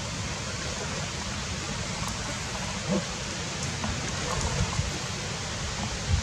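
Steady rush of running water, with a faint knock about three seconds in.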